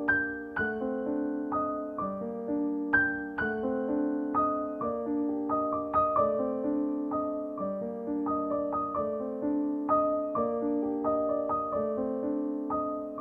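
Background music: a gentle piano playing a soft melody of single notes over held chords.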